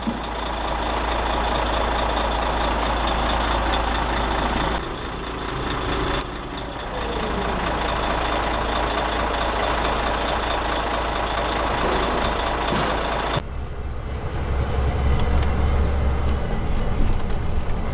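Heavy truck engines idling close to the wheels, a dense steady noise with a thin high tone running through it. About 13 seconds in it cuts abruptly to the low drone heard inside a moving truck's cab.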